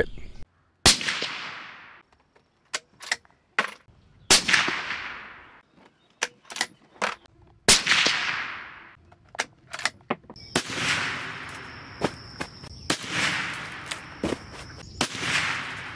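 Suppressed .308 Winchester bolt-action rifle (Ruger American) firing three shots about three and a half seconds apart, each a sharp report with a long fading echo, with short clicks between shots. About ten seconds in come three more sharp reports with long tails, heard from the target end.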